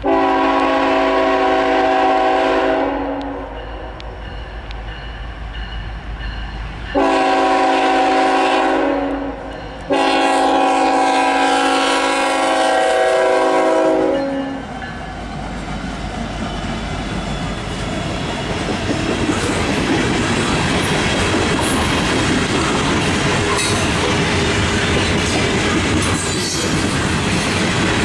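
Lead locomotive's multi-tone air horn on a GE ET44AC-led Norfolk Southern coal train, blown three times for a grade crossing, the last blast the longest. Once the locomotives pass, the loaded coal hopper cars rumble and clatter by on the rails.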